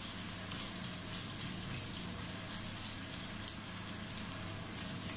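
Sliced onions sizzling in hot oil in a stainless steel pot, a steady hiss, with a single sharp knock about three and a half seconds in.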